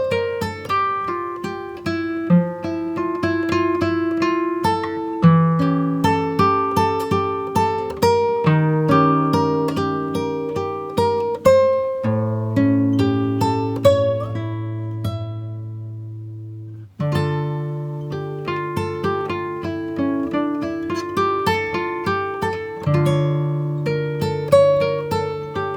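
Background music of acoustic guitar, plucked notes and chords in a steady flowing pattern; one chord is left ringing and fades out just before a new phrase begins about two-thirds of the way through.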